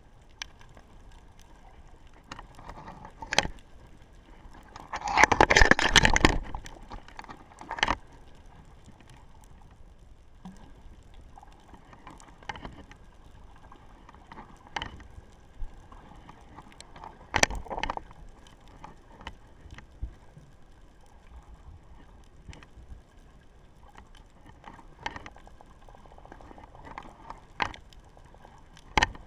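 Underwater sound picked up by an action camera sitting in the water: a faint steady background with scattered sharp clicks and knocks every few seconds, and a louder rushing burst about five to six seconds in.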